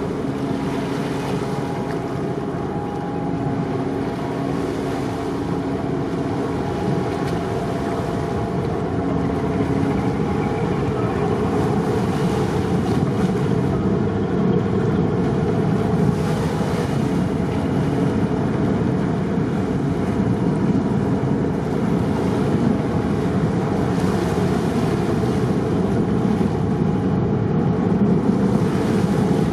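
Car ferry's engines running with a steady low drone, with sea wash and wind buffeting the microphone in repeated gusts. A faint steady hum is mixed in over the first several seconds.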